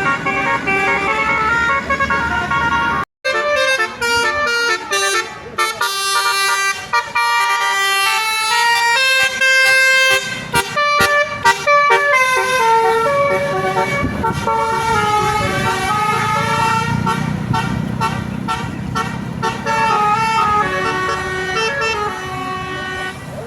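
Bus telolet horn of the Basuri type, a set of electric multi-trumpet horns, playing a tune of stepped notes over and over, with a brief break about three seconds in. A bus engine rumbles underneath in the second half.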